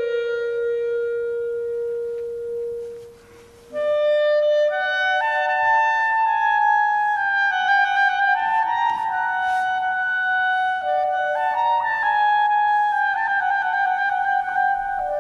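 Solo clarinet improvising: a long held note that fades out, a short pause about three seconds in, then a phrase of stepped notes that climbs and falls in held tones.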